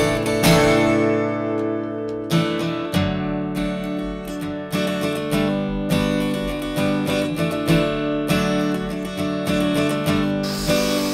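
Background music: acoustic guitar playing a steady strummed and picked pattern.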